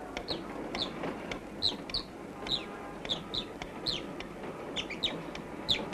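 Chicks peeping: a run of short, high chirps, about two a second, over a faint hiss.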